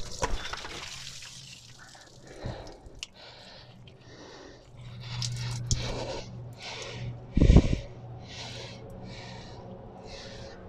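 A person breathing hard in quick, evenly spaced breaths while straining at work, with a low steady hum underneath and one heavy thump about halfway through.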